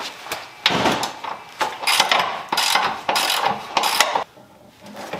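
Hand tools clanking and scraping against metal under the car, a run of loud clattering bursts from about a second in until near the end, then quieter.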